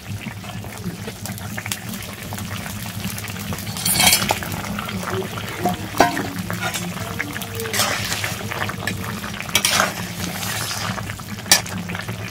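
Metal spatula stirring and scraping through a curry simmering in a metal karai, with scattered clinks against the pan over a steady low hum.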